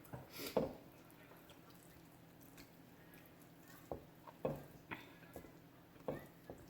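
A person eating grilled chicken close to the microphone: chewing and biting, heard as a few short separate mouth sounds with quiet between them.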